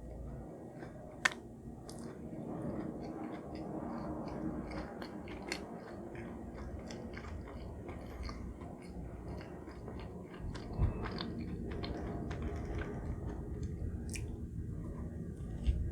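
Close-miked chewing and biting, with wet mouth clicks; a sharp louder click about a second in and another near the end.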